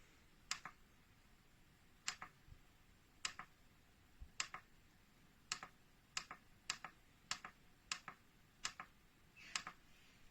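About eleven sharp clicks at irregular intervals of roughly a second. Many come as a pair, a firm click followed quickly by a softer one.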